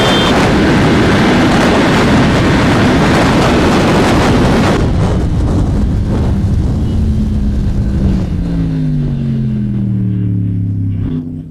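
Yamaha R1M's inline-four engine through a custom aftermarket exhaust, running hard at speed with a loud rushing noise for the first few seconds. It then eases off, with the engine note falling steadily over the last few seconds as the revs drop.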